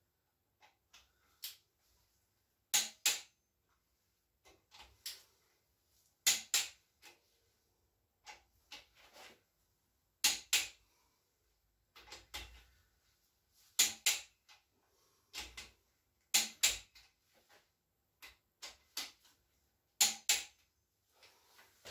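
Click-type torque wrench clicking off at its set torque while cylinder head bolts are checked. There are six sharp double clicks about every three and a half seconds, with fainter clicks and taps between.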